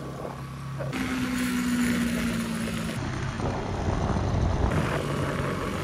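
Bajaj Pulsar NS200 motorcycle engine running with a steady low hum, under an even wash of wind and road noise.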